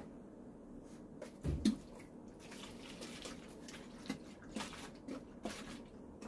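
Liquid sloshing in a handheld plastic drink bottle as it is tipped and turned, with a few short, irregular taps and rustles of the plastic.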